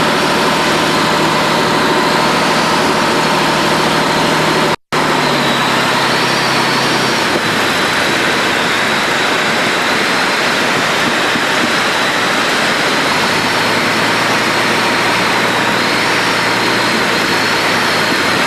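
Steady drone of a light aircraft's engine and propeller heard from inside the cabin of the Rallye, with a brief total dropout about five seconds in.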